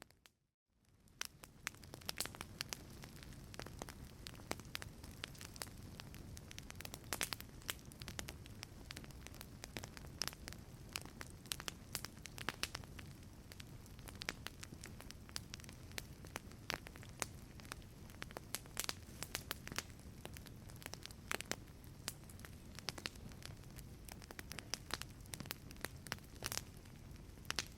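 Wood fire crackling in a fireplace: a steady low rumble of flame with frequent sharp pops and snaps. It cuts out briefly right at the start and fades back in within about a second.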